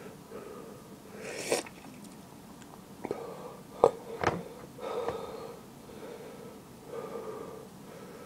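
A man breathing hard through his open mouth against the burn of a superhot chili pepper, with one sharp hissing breath about a second and a half in and a few sharp clicks near the middle.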